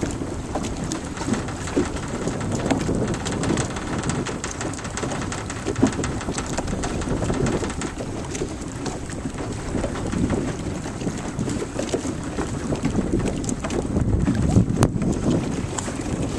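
Wind buffeting the microphone over choppy water, with water lapping and splashing around a small boat and many small scattered ticks and drips.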